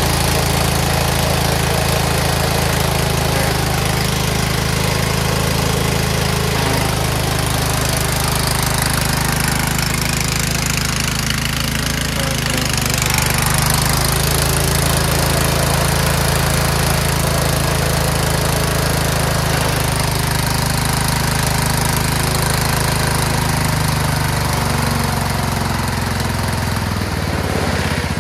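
Scotts by Murray 1542 lawn tractor's engine running steadily as the tractor is driven. Near the end the engine note drops as it slows.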